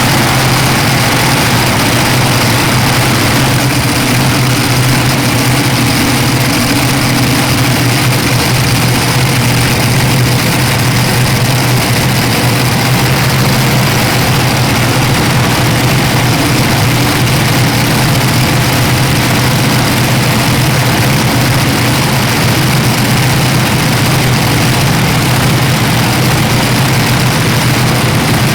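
A heavy engine running steadily at an unchanging speed, with a deep, constant drone and no revving.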